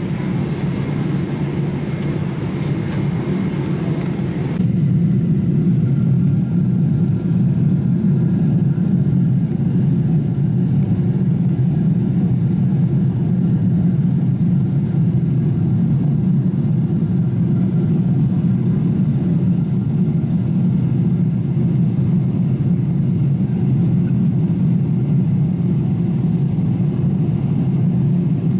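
Steady airliner cabin noise: the low drone of the jet engines and the airflow along the fuselage. About four and a half seconds in, the sound changes abruptly: the hiss drops away and the drone gets slightly louder.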